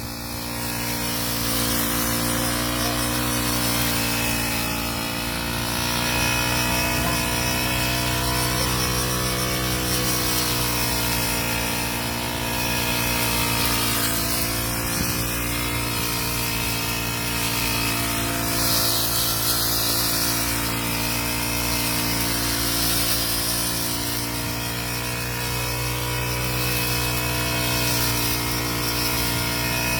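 Backpack petrol brush cutter's 40 cc four-stroke single-cylinder engine running steadily, its pitch wavering slightly now and then.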